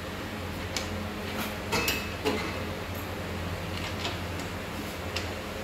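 Glassware of a double-distillation water unit clinking and knocking against its plastic supports as it is fitted by hand: a handful of light knocks, the sharpest about two seconds in, over a steady low hum.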